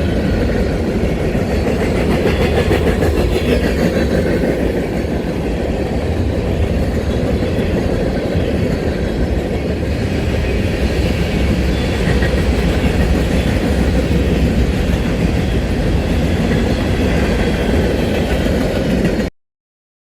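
Train rolling past: a steady rumble of wheels on the rails that cuts off abruptly near the end.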